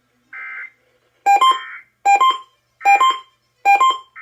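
A short burst of Emergency Alert System data tone over a radio broadcast, then a loud, regular pattern of electronic beeps from the EAS equipment, repeating about every 0.8 seconds.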